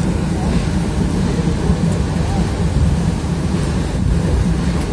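Narrow-gauge train under way: a steady, loud low rumble of the running train.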